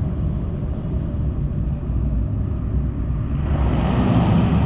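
Mercedes-AMG C63 S (W205) 4.0-litre twin-turbo V8 on catless downpipes and a track exhaust, essentially straight-piped, with a low, steady exhaust rumble echoing off concrete. About three and a half seconds in it swells louder and brighter.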